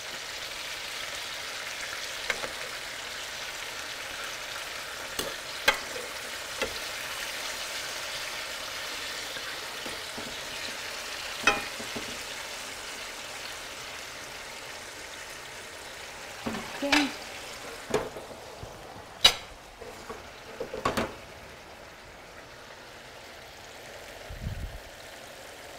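Steaks frying in olive oil in a nonstick skillet, sizzling steadily as tomato sauce is ladled over them, with a ladle knocking and scraping against the pan and the pot now and then. The sizzle grows quieter in the second half as the sauce covers the meat, and near the end the rest of the sauce is poured in from the pot.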